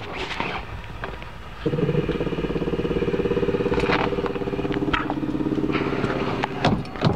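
Starter motor cranking the Mazda 13B rotary engine for about five seconds, with an even pulsing whirr. The engine does not catch, and the cranking stops abruptly.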